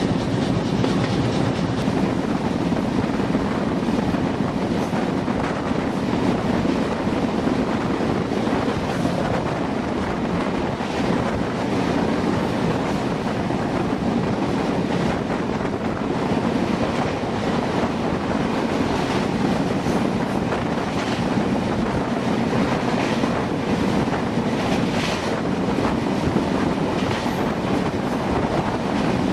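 Sundarban Express passenger train running on the rails: a steady rumble with faint wheel clicks over the rail joints.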